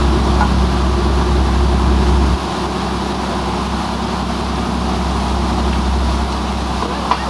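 Boat's engine running with a steady low drone that drops in level about two and a half seconds in, then keeps running.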